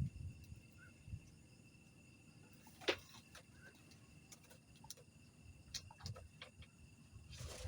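Crickets trilling steadily on one high pitch, with scattered sharp clicks and one louder click about three seconds in.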